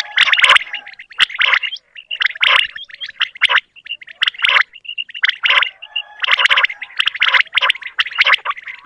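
Common quail calling, a quail call used to lure birds for hunting: repeated bursts of rapid rasping pulses, about one burst a second.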